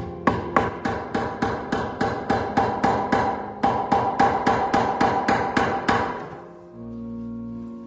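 Claw hammer driving a nail into a wooden board with quick, even blows, about four a second, with a brief pause halfway through; the blows stop about six seconds in. Soft music plays underneath.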